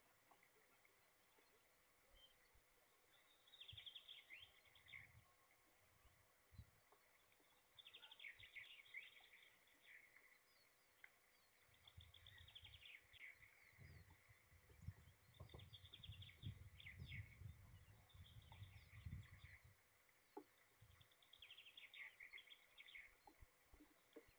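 A small songbird singing faintly in the woods: about six short song phrases of quick falling notes, repeated every few seconds. A low rumble comes in over the middle stretch.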